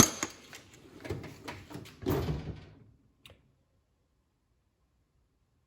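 Metal hand tools being handled: a sharp click at the start, then irregular clicks, knocks and rubbing for a couple of seconds, one last click a little after three seconds in, then silence.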